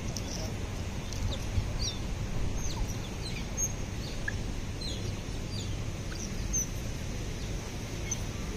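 Smooth-coated otters chirping: scattered short, high squeaks, some rising and some falling, over a steady low city hum.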